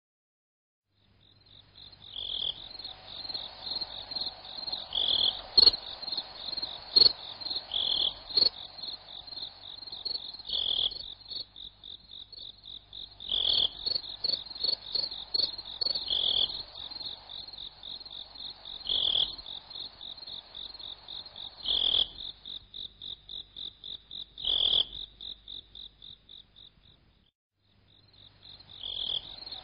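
Night-time insect chorus: a steady, high, pulsing cricket-like trill, with a louder chirp repeating about every three seconds and scattered clicks. It starts about a second in and drops out for a moment near the end.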